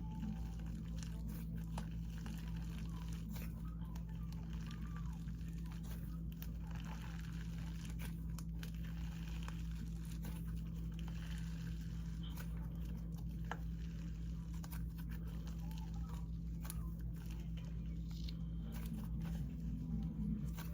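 Clay slime being kneaded and mixed by hand, giving off irregular small crackles and squishes, the sizzly sound of a clay slime. A steady low hum runs underneath.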